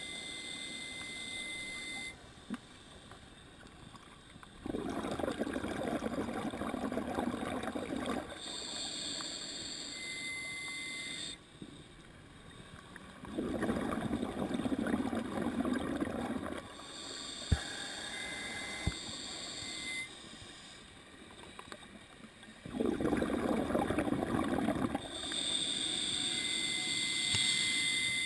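Scuba diver breathing slowly through an open-circuit regulator: a hissing inhale through the demand valve, a pause, then a gurgling rush of exhaust bubbles. Four inhales and three bubbling exhales, about one breath every nine seconds.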